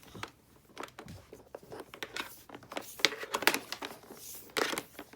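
Irregular rustling, crinkling and clicking, as of objects being handled; the sharpest clicks come about three seconds in and again near the end.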